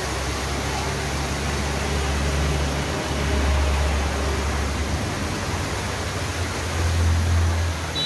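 Waterfall cascading over rock: a steady rushing of water, with a deeper rumble that swells about three seconds in and again near the end.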